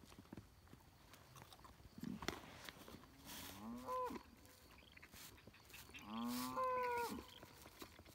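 A cow mooing twice, the second call longer, each moo starting low and rising to a higher pitch at its end. A short knock comes about two seconds in.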